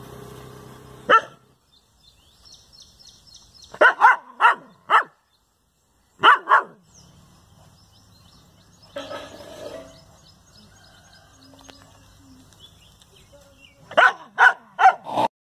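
Dog barking at its own reflection in a mirror, in short runs: a single bark, then four in quick succession, then two, and a fast run of four or five near the end.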